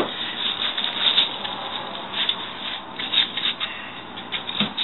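Packaging being handled: irregular rustling and rubbing.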